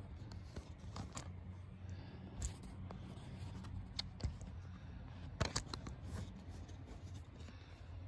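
Room tone with a steady low hum, broken by scattered light clicks and knocks, a quick cluster of them a little past the middle.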